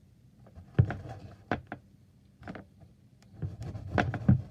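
A disinfectant wipe rubbing around the inside corners of a storage box, with several short knocks and bumps as the box is handled.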